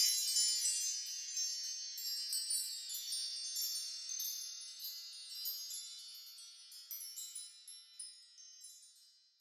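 Chimes ringing: a cluster of many high tones dying away slowly, with scattered lighter strikes along the way, until they fade out near the end.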